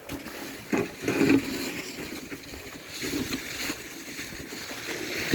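Snow shovel scraping and pushing through about 5 cm of fresh snow in a few strokes, the loudest about a second in.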